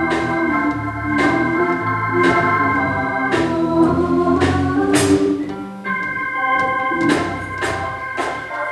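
Hammond-style church organ playing sustained chords over a bass line, with light percussion strikes about once a second and a chord change about six seconds in.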